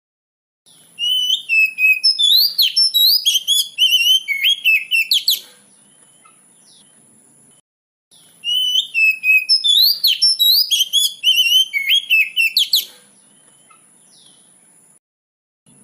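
Oriental magpie-robin (kacer) song: two near-identical phrases of rapid, varied whistled notes, each a few seconds long, with a pause of about three seconds between, played as a masteran track to draw out young birds. A thin, steady high tone runs under each phrase.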